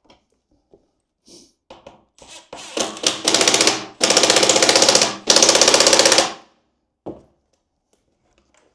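Power driver fastening the skid plate's mounting bolts: three bursts of rapid ratcheting hammering, each about a second long, the last two close together. Small clicks of handling come before and after.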